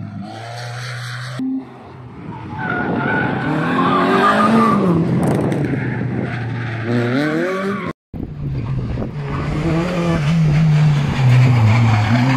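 Rally car engines revving hard through a bend, the pitch climbing and dropping with throttle and gear changes. The sound cuts out for an instant about eight seconds in, then another pass with the engine revving again.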